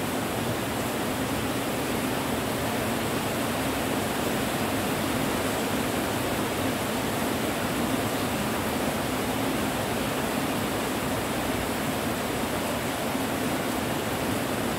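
Steady rain, an even, unbroken hiss with no separate drops or thunder standing out.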